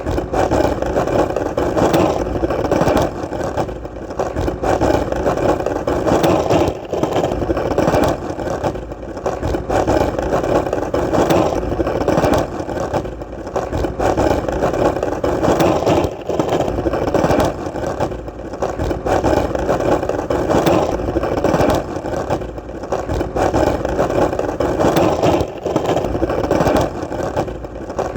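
Skateboard wheels rolling on hard ground: a continuous rolling rumble with occasional clicks, dipping in loudness every couple of seconds.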